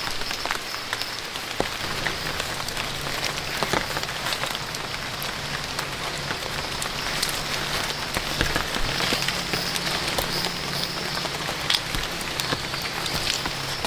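Steady rain falling on a surface: an even hiss scattered with the sharp ticks of individual drops.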